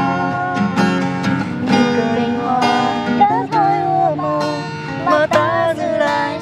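Acoustic guitar strummed steadily under a woman singing long, wavering notes, the closing line of a slow pop ballad.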